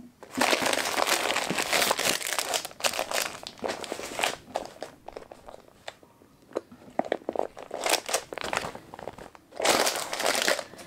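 Clear plastic bags around two cross-stitch kits crinkling and crackling as they are handled and moved apart. There is a long stretch of crinkling in the first few seconds, then scattered crackles, and another burst of crinkling near the end.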